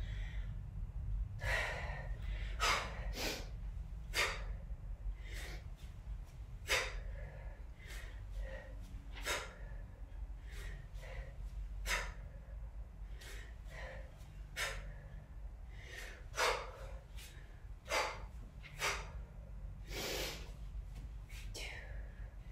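A woman's short, sharp exhales, one with each rep of a one-arm kettlebell set, about one every second or so.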